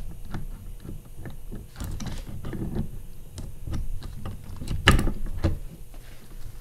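Irregular metallic clicks and clinks of a VW manual transmission's shift linkage being worked by hand onto the gear stack, with one sharper metal knock about five seconds in.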